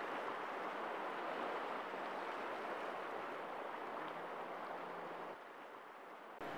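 Steady seaside ambience: an even wash of surf, easing off a little about five seconds in and stopping abruptly near the end.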